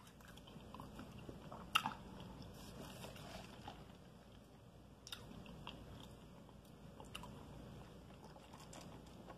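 Faint eating sounds: soft chewing and mouth clicks, with a few sharper clicks a couple of seconds apart, while she sips a drink through a straw.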